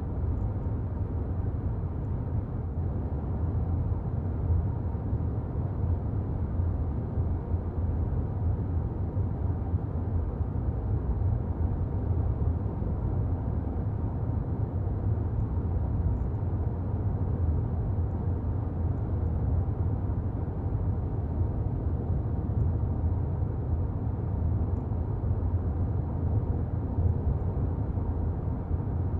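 A car being driven: a steady low rumble of engine and road noise, with no marked changes.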